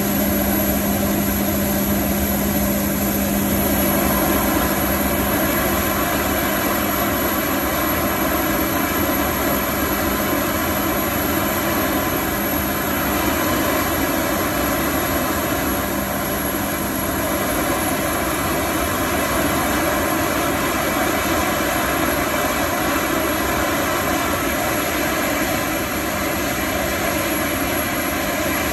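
Boeing 757 auxiliary power unit (APU) in the tail cone running steadily at speed: a loud, even turbine rush with a constant high-pitched whine. A lower hum fades out about halfway through.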